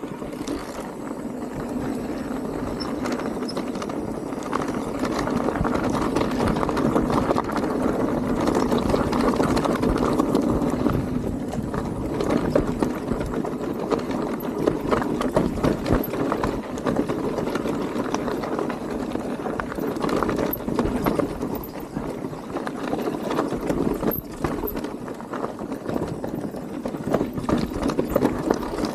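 Electric mountain bike riding a dirt trail: tyres rolling and the bike rattling and knocking over roots and bumps, with many sharp knocks.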